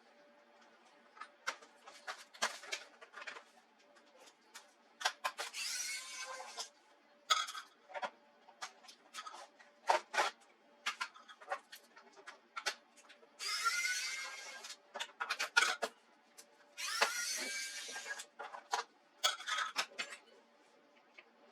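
Tool and handling noises from taking apart a laptop's plastic case: scattered clicks and taps of small parts, and three short noisy runs of a second or so, each with a pitch that bends.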